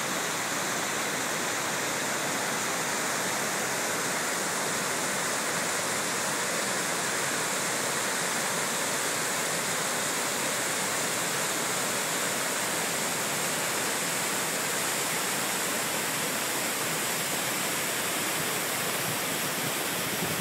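River rapids and small waterfalls rushing over rock: a steady, unbroken noise of whitewater.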